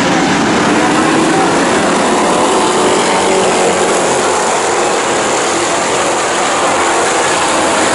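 Engines of a pack of Thunder Stock race cars running together at race speed on a dirt oval: a loud, steady, dense engine noise.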